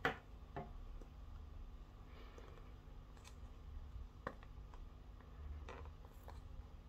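Light scratching and a handful of small sharp clicks as the paper seal sticker on a small cardboard box is picked at and peeled.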